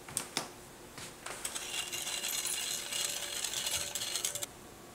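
Metal wire whisk stirring sugar into water in a glass bowl: two light clinks, then about three seconds of rapid metallic clinking and scraping against the glass that stops abruptly.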